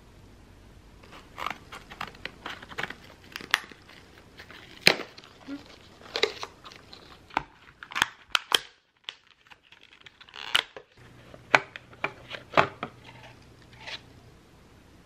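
Stiff plastic blister packaging crinkling and cracking in irregular sharp snaps as a wireless computer mouse is pried out of its cardboard backing, with a short pause partway through.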